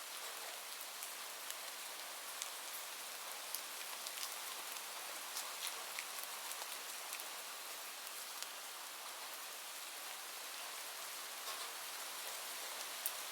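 Steady rain falling as an even hiss, with individual drops scattered through it, ticking sharply as they hit a surface.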